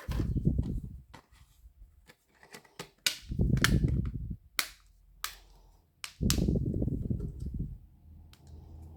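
Small parts and tools being handled during smartphone reassembly: sharp clicks and snaps, with three low rumbling stretches of about a second each.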